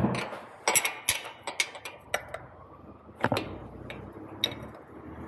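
Irregular metallic clicks and clinks of a socket wrench being fitted and worked on a spark plug of a Continental IO-550 aircraft engine.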